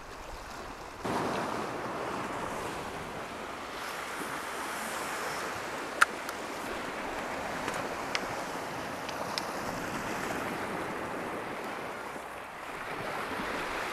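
Sea waves washing against a rocky shore, a steady rushing that grows louder about a second in. A single sharp click sounds about six seconds in, and a few fainter ticks follow a couple of seconds later.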